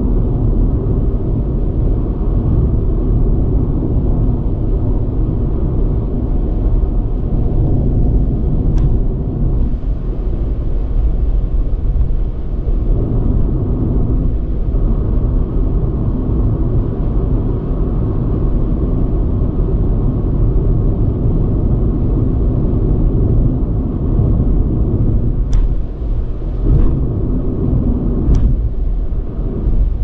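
Car driving at road speed, heard from a dashcam: a steady low rumble of tyre, road and engine noise. A few faint clicks sound once about nine seconds in and a few times near the end.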